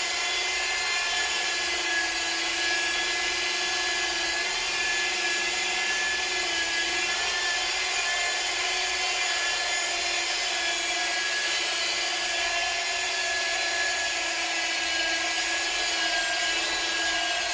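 Electric paint polisher running steadily with an even motor whine, working cutting compound over a car's painted panel.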